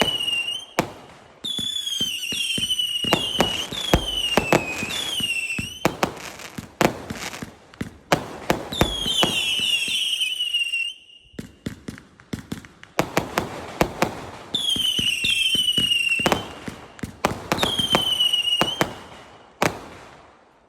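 A 0.8-inch, 399-shot fireworks cake firing: clusters of whistling shots, each a high whistle falling slightly in pitch, alternating with runs of sharp pops and crackling, fading out near the end.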